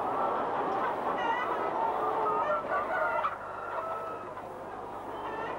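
A flock of laying hens clucking and calling over one another in a dense, steady chatter. It turns quieter a little past halfway.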